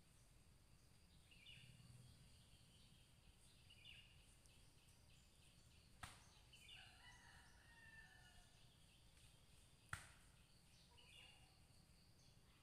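Faint outdoor quiet broken by two short sharp cracks about four seconds apart, shots from the hunting party's rifle fired at squirrels up a coconut tree. Birds call now and then in between.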